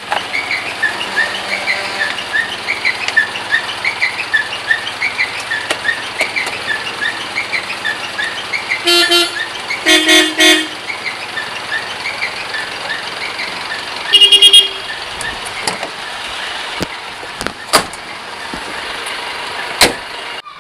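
Vehicle horns honking over steady traffic noise: a short horn blast about nine seconds in, a longer one a second later, and a third, higher-pitched one near fourteen seconds. A rapid run of high chirps fills the first half, and a few sharp knocks come near the end.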